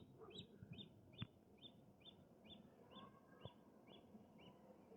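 Near silence, with a faint, high chirp repeated a little over twice a second that fades toward the end. Two soft clicks come about a second in and past the middle.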